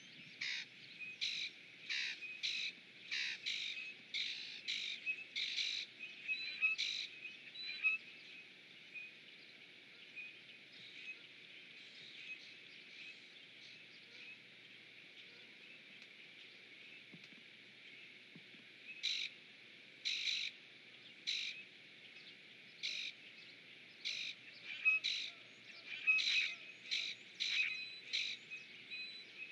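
Birds calling: runs of short, sharp calls at about two a second, then only a few scattered calls, then another quick run in the last ten seconds, over a faint steady hiss.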